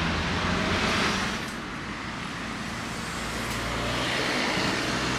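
Road traffic noise: a vehicle's engine and tyres passing, fading about a second and a half in, then building again as more traffic approaches.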